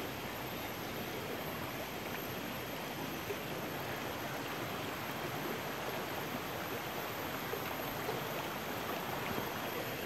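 A rocky river running over and between boulders and stones: a steady rush of water.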